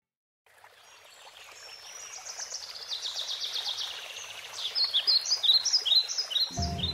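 Birdsong: many quick chirps and trills over a steady background hiss, fading in and growing louder. Near the end, music begins with low sustained notes.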